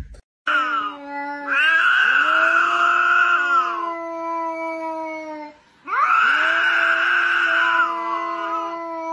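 Domestic cat yowling in two long drawn-out calls, each about three seconds, rising at the start and sliding down at the end, typical of a cat standoff.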